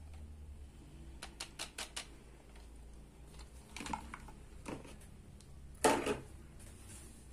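Hard plastic toy kitchen pieces clicking and knocking as they are handled: a quick run of four light clicks about a second in, then the loudest event, a clatter just before six seconds in as the toy grill rack is lifted off.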